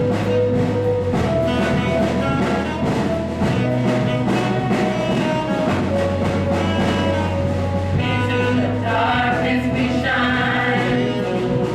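Gospel praise-and-worship music: a choir singing over a band with a steady bass line.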